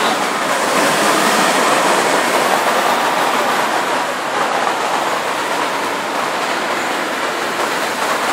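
Steady noise of road traffic on a busy city street, with no single vehicle standing out.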